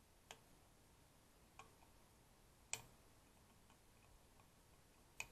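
Diagonal flush cutters snipping the soldered power MOSFET leads on an amplifier circuit board: four sharp clicks, the loudest about halfway through, over near silence.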